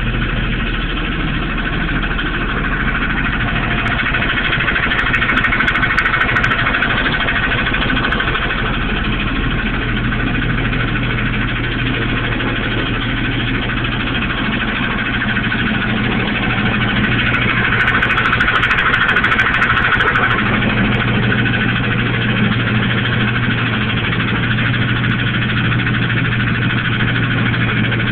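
Chevy Astro van engine running steadily, growing a little louder twice, with a noise the owner places somewhere around the transmission and wonders might be rod knock.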